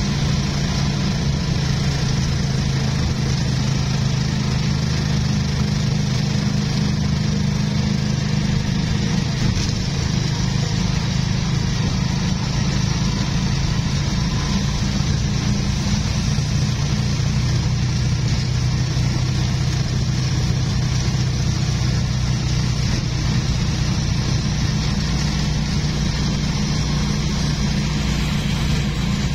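Vehicle engine running steadily at a constant speed with road and wind noise, heard from inside the moving vehicle.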